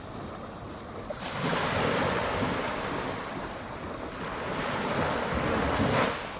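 Small ocean waves on a calm sea breaking and washing up the beach: the wash comes in about a second in, swells again and cuts off sharply near the end.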